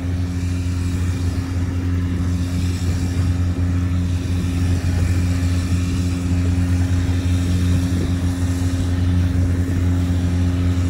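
An engine running steadily at a constant speed, a low even hum that holds its pitch throughout.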